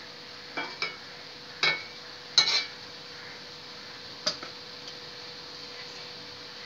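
A metal spatula clanks and scrapes against a kadai while prawn masala is stirred. There are several ringing metal knocks in the first three seconds and one more a little after four seconds, over a steady low hiss.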